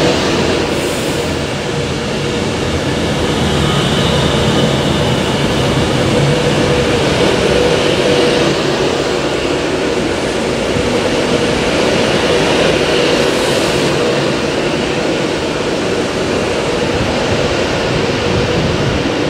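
Class 390 Pendolino electric train running past close by along the platform: a steady rumble of wheels on rail with a faint steady hum.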